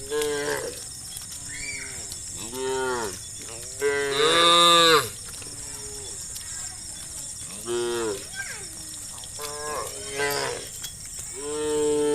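Cattle mooing: about six separate moos from different cows, one after another. The longest and loudest comes about four seconds in, and another long one near the end.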